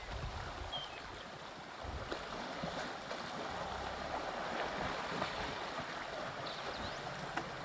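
Water sloshing and splashing as a herd of African elephants wades and swims, with gusts of wind on the microphone and a few short bird chirps.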